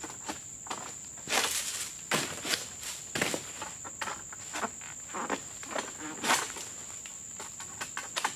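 A steady high-pitched insect drone, with irregular short rasping strokes and rustles as a stainless-steel Super King egrek on a long pole hooks and slices into oil palm frond stalks.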